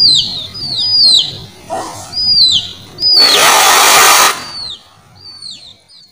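A bird gives a run of short high chirps, each one falling in pitch, about eight in all. About three seconds in comes a loud hissing spray lasting just over a second: water mist blown over the chicken in hand.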